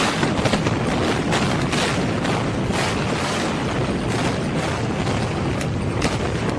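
Explosive implosion of brick high-rise apartment blocks: a quick series of demolition charges cracking, most densely in the first few seconds, over the continuous noise of the buildings collapsing.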